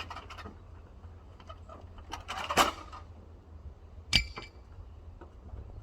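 Metal tools clattering during hose-removal work on an excavator: scattered light clicks, a short scraping rattle about two and a half seconds in, then a single sharp metal clank that rings briefly about four seconds in.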